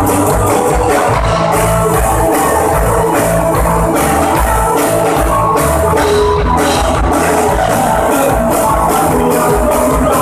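Live rock band playing: electric guitars, bass guitar and drum kit keeping a steady beat.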